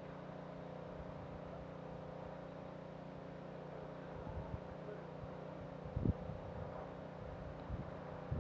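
A steady low mechanical hum made of several held tones, with a short low thump about six seconds in.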